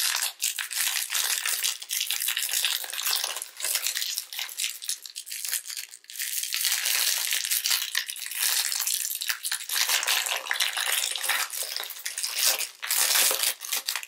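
Close-up crinkling and crackling of a plastic trading-card pack wrapper as a stack of cards is pulled out and handled, a dense run of small crackles. It is louder for stretches about seven seconds in and again near the end.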